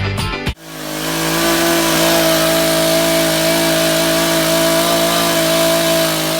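A motor running at a steady, unchanging speed, coming up to speed about half a second in.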